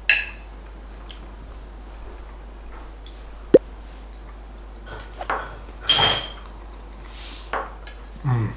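Knife and fork clinking on a dinner plate while eating: a sharp tap about three and a half seconds in and a ringing clink about six seconds in, with fainter scrapes between. A short low murmur comes near the end.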